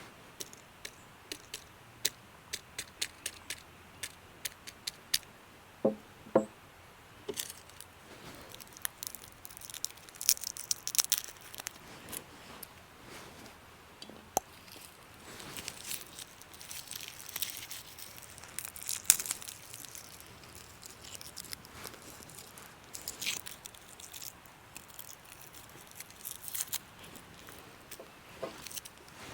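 Dry garlic skins crackling and tearing as crushed cloves are peeled by hand. A run of small sharp clicks at first, two knocks about six seconds in, then uneven crackling and scraping.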